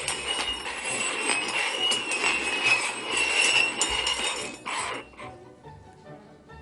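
Cups being shuffled around on a table, a continuous clinking, jingling clatter that stops about five seconds in.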